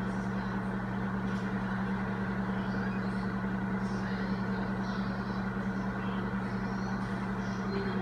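Microwave oven running on its lowest power setting: a steady low electrical hum over the whirr of its fan.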